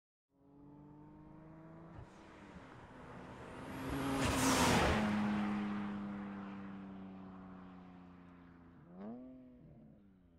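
Nissan 370Z's 3.7-litre V6 driving past: the engine note grows louder, drops in pitch as the car goes by about four and a half seconds in, and fades away. A brief rise and fall in engine pitch follows about nine seconds in.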